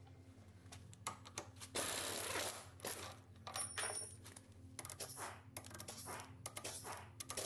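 Metal engine parts and tools clinking and knocking while they are handled during engine disassembly, with a brief scraping stretch about two seconds in and a short metallic ring just before the middle.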